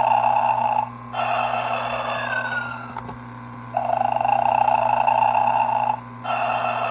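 Gemmy Snoring Santa's recorded snore playing through its small speaker: a long snoring inhale, then an exhale with a falling whistle, repeating about every five seconds, twice in all. A steady low buzz runs underneath.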